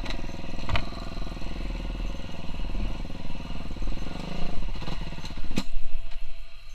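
KTM 350 SX-F dirt bike's single-cylinder four-stroke engine running steadily at low revs as the bike is ridden. Sharp knocks come about a second in and again near the end.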